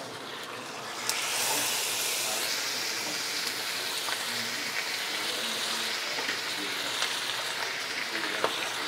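Pork belly chunks being dropped into hot oil in a wok, sizzling. The sizzle jumps louder about a second in as more pieces hit the oil, then holds steady with a few small pops.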